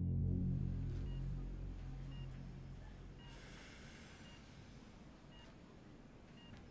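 Faint beeps of a hospital patient monitor, about one a second, over a low drone that fades away during the first three seconds.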